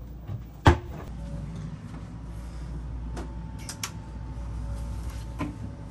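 A wooden door knocks shut about a second in, over a steady low hum; a few light clicks follow later.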